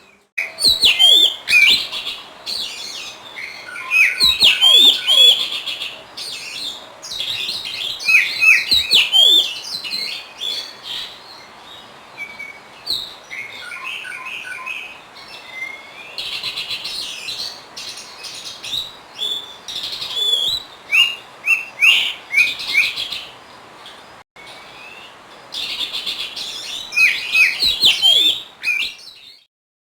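Oriental magpie-robin (kacer) singing: repeated bursts of quick, varied whistles and chattering notes with short pauses between them, stopping just before the end.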